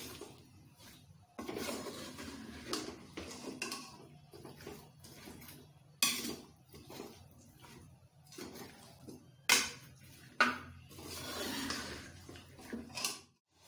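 A spatula scraping and knocking against a cooking pot as chopped raw potatoes are stirred into the fried masala. The scrapes are irregular, with a few sharper knocks.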